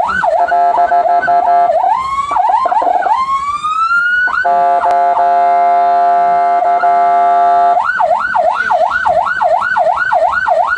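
Ambulance electronic siren cycling through its tones. It opens with a quick warble, then gives a steady horn tone, a slow rising wail, and a steady horn tone of about three seconds. Near the end it changes to a yelp that sweeps up and down about two and a half times a second.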